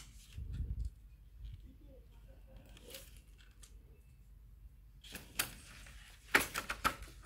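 Plastic clips and brackets of an air-conditioner deflector being handled against its perforated plastic sheet: scattered light clicks and rattles, with a dull thump about half a second in and the loudest run of clicks near the end.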